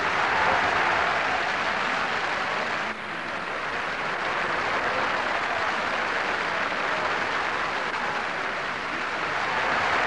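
Audience applauding steadily in a hall, a sustained ovation that briefly dips about three seconds in.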